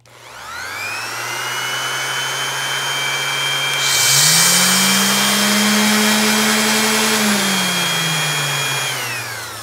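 Random orbit sanders running free in the air. The old Ryobi's high-pitched motor whine spins up at the start, holds steady, and falls in pitch as it winds down near the end. About 4 s in a lower hum with an airy hiss rises in pitch, runs for about three seconds and dies away; this is likely the DeWALT DWE6423 run alongside it for comparison.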